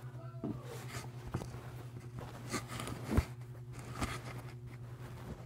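Handling noise from a phone held in the hand: a few soft knocks and rustles, the loudest about three seconds in, over a steady low hum.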